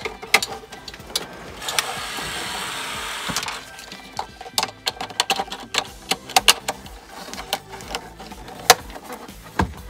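Plastic clicks and knocks as a BMW E46 M3 instrument cluster is handled and its wiring connectors are pushed into the back of it. About two seconds in, a steady scraping rustle lasts a little under two seconds.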